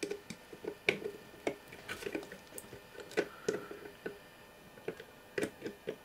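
Needle-nose pliers gripping and slipping on a very tight slotted ring nut on a radio control panel's front: a string of small, irregular metal clicks, about two or three a second.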